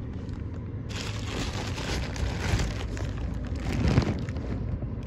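Plastic postal bag and the lure packets inside it crinkling and rustling as the parcel is opened and handled, starting about a second in, over a low steady hum.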